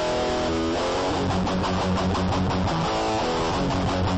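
Background music: strummed guitar over a bass line and a steady beat.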